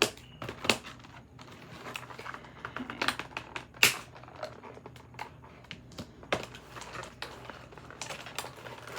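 Irregular clicks and taps of a doll's plastic and cardboard packaging being handled as the doll is taken out of its box.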